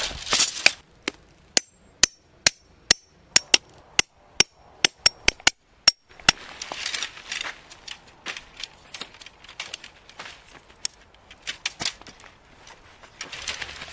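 A hammer striking a metal tent stake into hard ground: a quick run of sharp blows, two to three a second, some with a short metallic ring, for about the first six seconds. After that, the rustle of tent fabric and light clicks of tent poles being handled.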